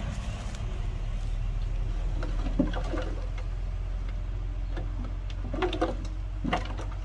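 Heavy diesel engine of earthmoving equipment running steadily at a low, even hum. A few short calls sound over it near the middle and towards the end.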